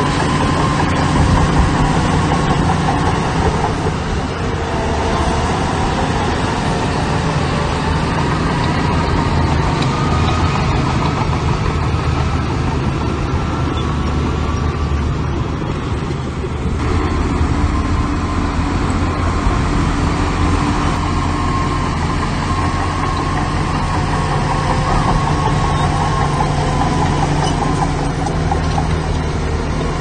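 Heavy diesel engines of earthmoving machines running steadily under load, with a high whine that rises and falls over the engine note.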